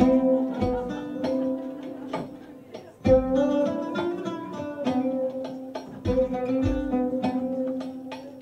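Live acoustic Middle Eastern-style music: an oud and a lap-played resonator guitar pick a melody over hand-drum strikes, with deep drum thumps at the start, about three seconds in and about six seconds in.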